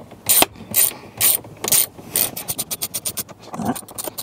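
Hand socket ratchet tightening bolts. It makes about five slow strokes, each with a rasping click, about two a second, then from about halfway a fast, even clicking of about eight a second.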